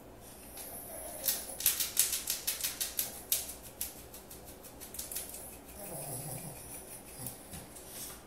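Chihuahua scratching itself with a hind leg: a quick rattling run of scratches, about six a second, lasting nearly three seconds.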